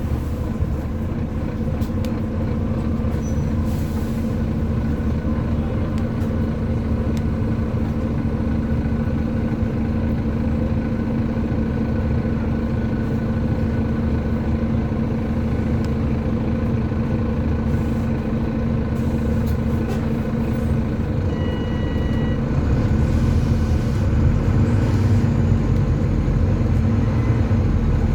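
Volvo B9TL double-decker bus's straight-six diesel engine running on the move, heard from on board as a steady drone that gets a little louder about three quarters of the way in. A brief beep sounds at about the same point.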